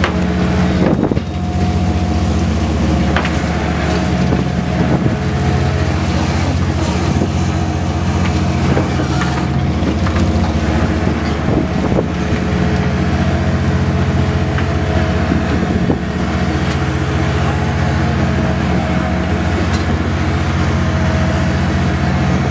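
Boat engines running with a steady, deep drone, and a few short knocks about a second in and again around ten and twelve seconds.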